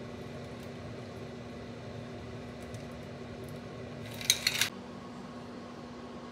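Steady low hum, with a quick cluster of sharp metal-on-glass clinks a little over four seconds in as a metal cocktail shaker knocks against the rim of a martini glass at the end of the pour.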